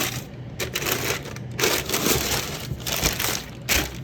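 Packing material crinkling and rustling in several bursts as a shoebox is unpacked.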